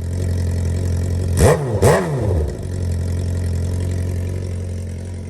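Suzuki GSX-R1000's inline-four engine idling, blipped twice in quick succession about a second and a half in, each rev rising and dropping straight back, then settling to a steady idle.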